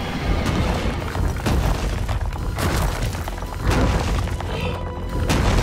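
Cartoon sound effects of a monster truck smashing: four heavy crashing booms, roughly a second apart, over dramatic background music.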